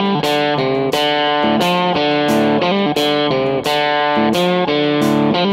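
Background music: a guitar playing a steady, rhythmic riff with evenly spaced plucked notes.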